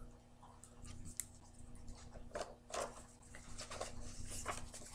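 Pages of a picture book being opened and flipped: a few faint, short papery rustles and flicks.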